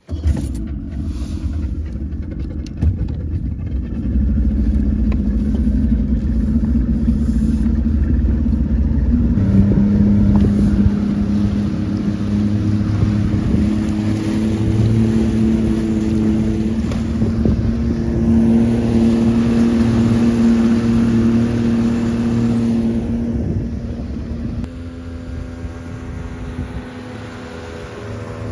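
The outboard motor of a 1994 Nitro bass boat running with the boat under way, water rushing along the hull; about ten seconds in the engine settles into a steady tone at speed. Near the end the sound changes to the boat heard from shore as it speeds past, its engine tone rising.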